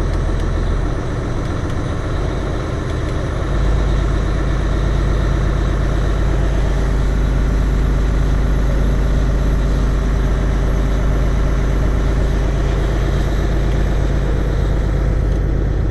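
Mack Pinnacle truck's diesel engine idling in the cab while warming up from a cold start. About three and a half seconds in, the idle is raised and the engine gets louder, then runs steadily at the higher speed now that the coolant is above 20 °C.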